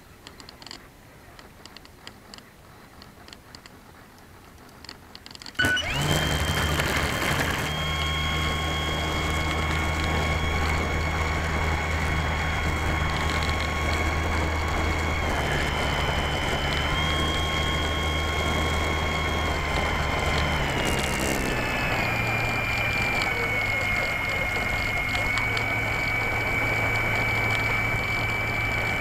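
Electric motor and propeller of a Slow Stick model plane, heard from the camera on board: after a few seconds of quiet with faint ticks, the motor starts abruptly and runs with a loud steady whine. Its pitch dips briefly midway and settles lower about three-quarters of the way through.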